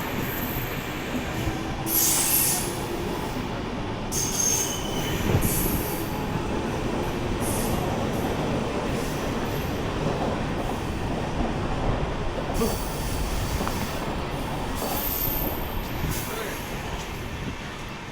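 A train running past at speed, its wheels and cars making a steady rumble and rush, with several brief high-pitched squeals from the wheels on the rails.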